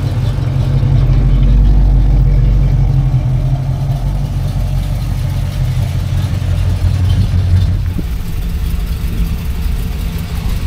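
A classic car's engine running with a deep, steady note as the car drives slowly past. It grows louder about two seconds in and swells again around seven seconds.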